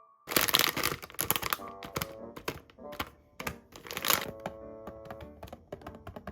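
Plastic snack wrappers being handled and torn open: a quick, irregular run of sharp crackles and taps over background music.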